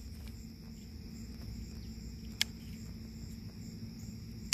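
Crickets chirring steadily, with a sharp snip of scissors cutting thyme stems about two and a half seconds in and another at the very end.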